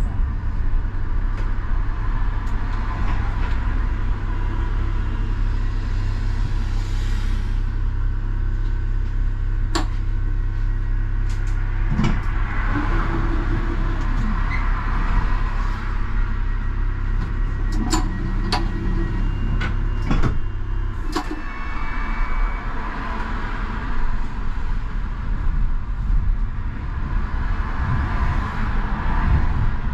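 Škoda 39T low-floor tram heard from its cab: a steady low electrical hum with running noise, broken by several sharp clicks and knocks. The hum changes character about two-thirds of the way through.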